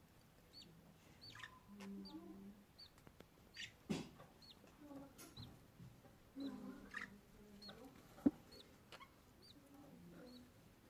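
Baby budgerigar chick cheeping: short, high peeps repeating about once a second, mixed with softer, lower calls. Two sharp clicks, the louder one about eight seconds in.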